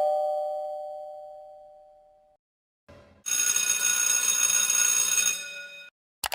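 Two-note ding-dong doorbell chime ringing out, fading away over about two seconds. About three seconds in, a loud, rattly continuous ring lasts about two and a half seconds, and a short click sounds at the end.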